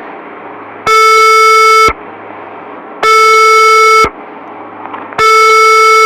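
Emergency alert alarm tone: three loud, steady one-second blasts about two seconds apart, with a faint hum between them.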